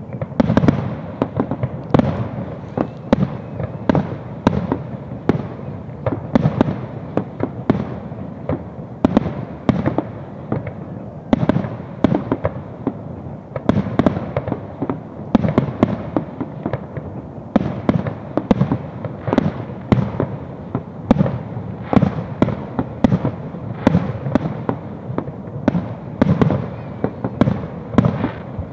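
Aerial firework shells bursting in quick succession: sharp bangs about one to two a second, with a continuous low rumble between them.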